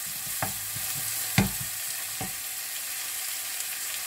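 Chopped onions sizzling in hot oil in a frying pan as they cook toward light golden, stirred with a wooden spatula. A few knocks of the spatula against the pan in the first two seconds, the loudest about a second and a half in, then steady sizzling.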